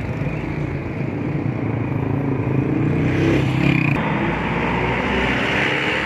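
Motor vehicle engine running close by, its pitch rising briefly about three seconds in.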